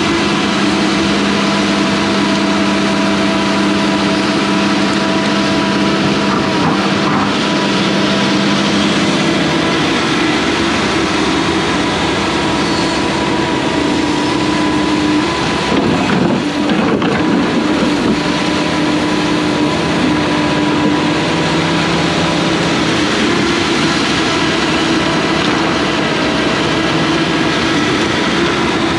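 Hyundai crawler excavator's diesel engine running at working revs, with a steady hydraulic whine that changes pitch now and then as the boom and grapple move.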